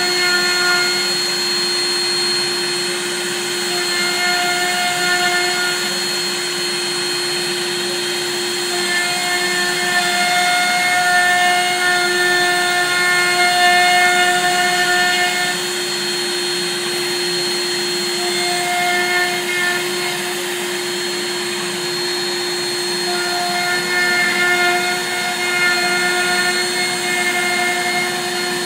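Desktop CNC milling machine's spindle running with a steady whine while milling black locust wood. A higher whine comes and goes in stretches of a few seconds.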